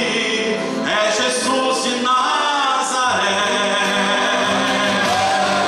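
A man singing a gospel hymn into a microphone, his voice carried over the church's sound system.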